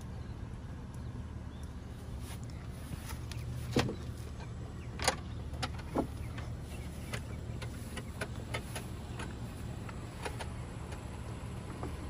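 Scattered light clicks and taps of hands working on a Tesla Model S door, with three sharper knocks between about four and six seconds in, over a steady low hum.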